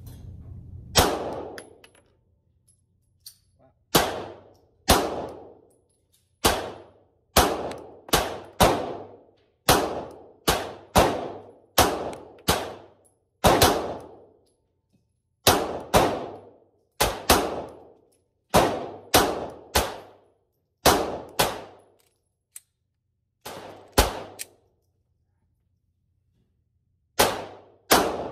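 A 9mm pistol fired as a long string of single shots at an uneven pace, roughly one to two shots a second, each shot with a short ringing tail, with a pause of about two seconds near the end.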